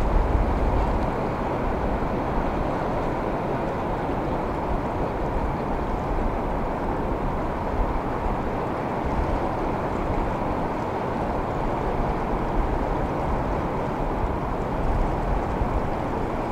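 Steady wash of ocean waves around the pier, with low wind rumble on the microphone that is strongest in the first second.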